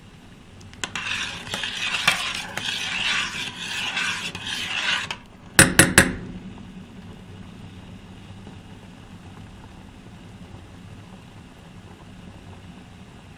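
Spoon stirring food in a pot, scraping and rasping for about four seconds, followed by three quick sharp knocks; after that only a low steady hum remains.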